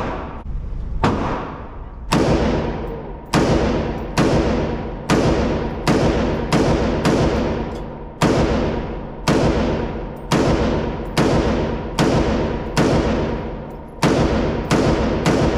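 A semi-automatic firearm fired in a steady string at an indoor range: about eighteen loud shots, roughly one a second, each followed by a long echoing decay off the range walls.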